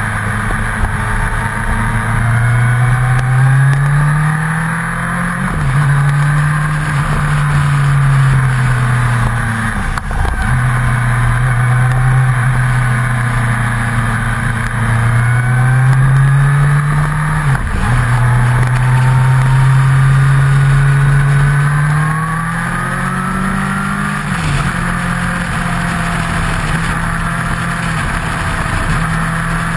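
Motorcycle engine running at road speed, heard from a camera on its fairing. Its pitch climbs over a few seconds and drops abruptly several times as the throttle is worked, over steady wind and road noise.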